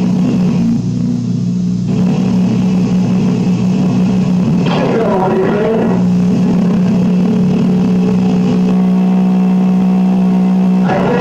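Aircraft engine drone coming through an open radio transmission: a steady low hum with even overtones, broken by a short warbling sound about five seconds in.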